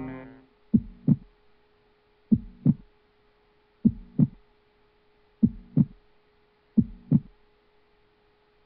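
Slow heartbeat sound effect: five double 'lub-dub' thumps, about one and a half seconds apart, over a faint steady hum.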